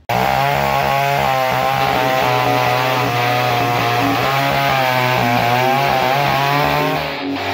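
McCulloch two-stroke chainsaw running at full throttle as it cuts through a log, its engine note wavering under load.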